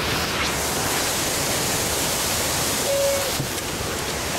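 Steady rush of churning water from a river rapids ride, heard from aboard a round raft.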